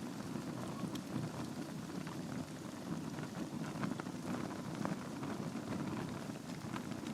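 Wood logs burning in a fireplace: a steady low rumble of the flames with frequent small crackles and pops scattered throughout.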